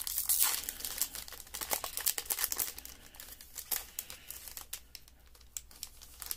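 Crinkling and tearing of a Topps baseball card pack's foil wrapper as it is torn open by hand, busiest at first and thinning out after about three and a half seconds.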